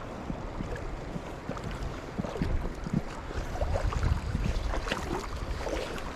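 River water splashing and gurgling, with a steady low rumble and irregular knocks and splashes, some wind on the microphone.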